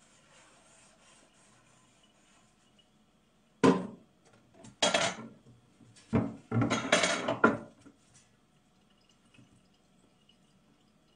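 Dishes and cutlery clattering in a kitchen sink during washing-up, in three loud bursts of knocks around the middle, over a faint hiss of water.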